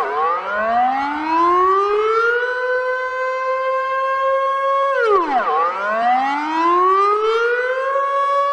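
Civil defence warning siren wailing: its pitch drops quickly, then climbs slowly for about two and a half seconds and holds. The cycle comes round twice, about five seconds apart.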